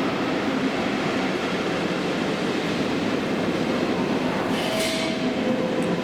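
Train running through a railway station: a steady noise, with a short hiss about four and a half seconds in.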